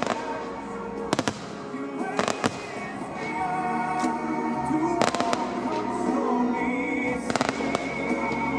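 Fireworks exploding in four clusters of sharp bangs, over music played for the display.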